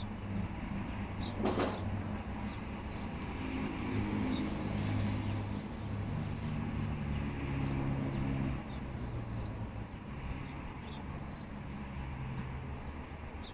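Motor vehicle engine running with a low rumble whose pitch rises and falls. A short hiss comes about a second and a half in.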